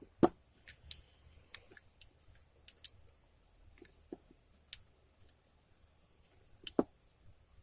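Ball-bearing-pivot folding pocket knives being opened and snapped shut: a scattered series of sharp metallic clicks of the blades swinging out and the liner locks engaging and releasing.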